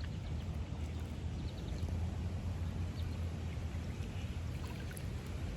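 Steady low rumble of flowing river water, with a few faint small ticks.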